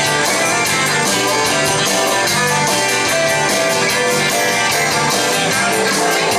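Instrumental break of a honky-tonk band song: guitar lead over bass and drums with a steady beat, no singing.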